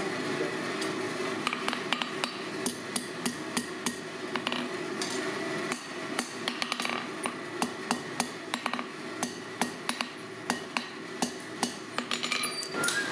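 Hand hammer striking a glowing steel bar on an anvil: a long series of quick ringing blows, about two or three a second, with a brief pause about halfway.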